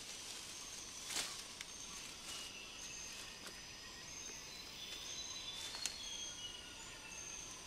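Rainforest ambience: a steady hiss with thin, high whistled calls of forest animals coming and going, and a few brief rustles of leafy branches.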